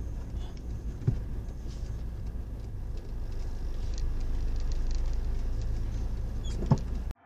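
Steady low rumble of a car's engine and tyres on a wet road, heard from inside the cabin, with a light knock about a second in and another near the end.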